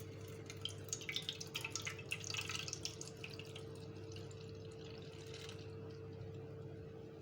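Blended fruit drink poured through a kitchen strainer into a pan: faint trickling and dripping, busiest for the first three seconds or so and then thinning to occasional drips, over a steady faint hum.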